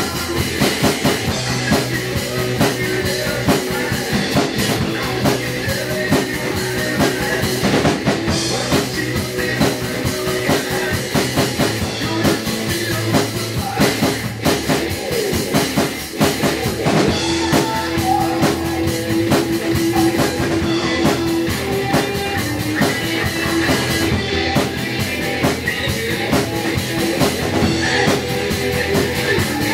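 Rock recording with electric guitar, with a large drum kit played live along with it as a drum cover.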